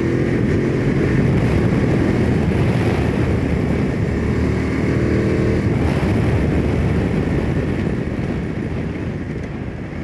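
The Voge DS900X Valico's two-cylinder engine pulls in fourth gear from low revs, under a loud rush of wind as the bike gathers speed. Near the end the rider closes the throttle and the sound drops away as the bike slows.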